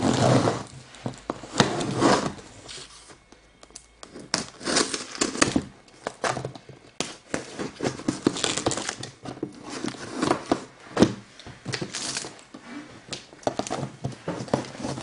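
A cardboard shipping box being opened: packing tape and cardboard being cut and torn, with crinkling, scraping and small knocks in irregular bursts.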